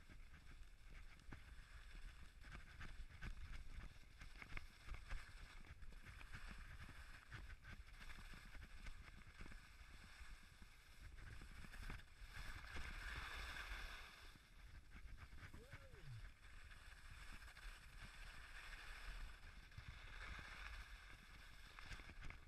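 Skis sliding and scraping over packed snow on a run-out track, faint, with a steady rumble of wind on the body-mounted camera's microphone; the scraping gets a little louder partway through.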